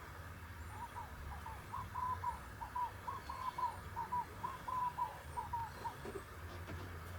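A bird calling: a run of about a dozen short, squeaky notes at much the same pitch, about two a second, over a steady low hum.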